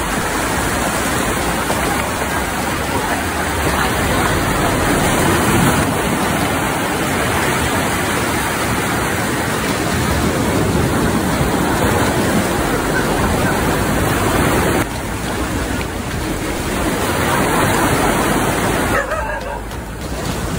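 Steady rush of surf: small waves breaking and washing up the sand, with brief dips about fifteen and nineteen seconds in.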